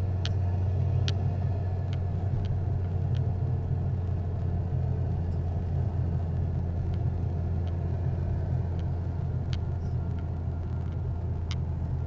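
Car interior noise while driving: a steady low rumble of engine and tyres on the road heard from inside the cabin, with a few light ticks scattered through it.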